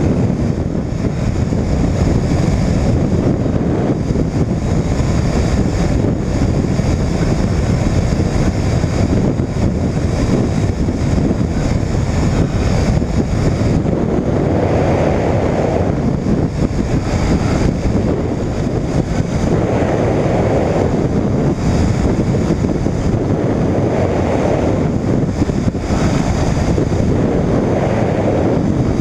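Air Creation Pixel microlight trike in flight: wind rushing over the wing-mounted microphone, steady and loud, with the engine and pusher propeller running underneath. The rush swells a few times in the second half.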